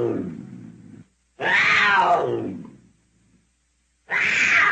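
Leopard calling in long, pitched calls that fall in pitch. One call ends about a second in, a second follows, and a third begins near the end.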